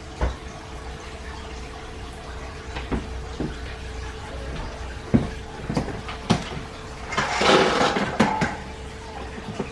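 Kitchen handling noises: scattered knocks and clunks as the camera is picked up and moved, with a brief rushing noise about seven seconds in that lasts a second or so. A faint steady hum runs underneath.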